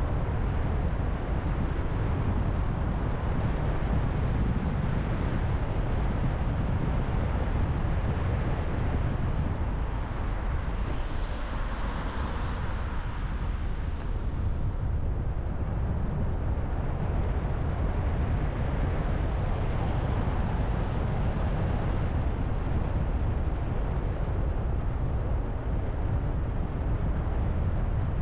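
Car driving on city streets: a steady low rumble of engine and road noise, with a brighter rushing sound that swells and fades about halfway through.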